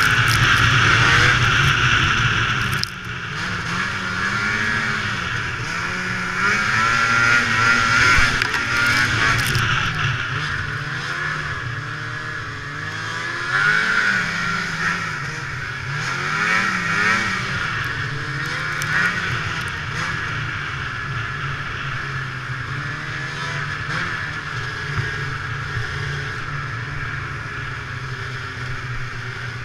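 Ski-Doo MX Z snowmobile's two-stroke engine running on the move, its pitch rising and falling as the throttle is worked, over a steady high rushing noise. The sound drops sharply about three seconds in as the throttle eases off.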